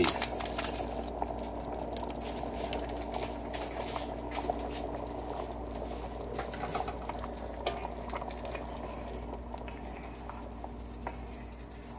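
A pot of gumbo broth bubbling on the stove, a steady crackling boil with a few light clicks scattered through it. Near the end a spoon stirs through the pot.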